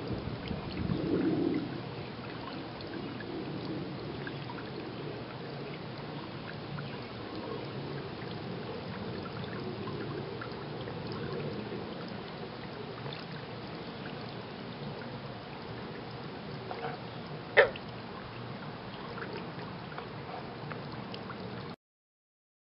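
Steady ambient background noise with no voices or music. There is a louder patch about a second in and one sharp click near the end, then the sound stops abruptly.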